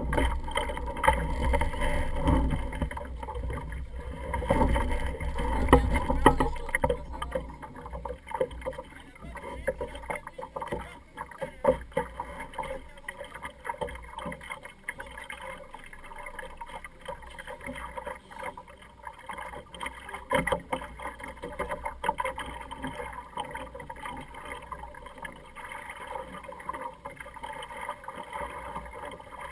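Small sailing dinghy under way: water sloshing and splashing against the hull, with scattered light knocks. A heavy low rumble fills the first several seconds and dies away about seven seconds in.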